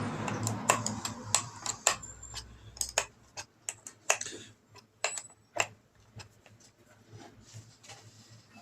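Sharp metallic clicks and clinks of a small 8 mm wrench working the blade-clamp bolts of an electric planer as they are tightened evenly, a little on each. The clicks come thick and fast at first, thin out and stop a little past halfway.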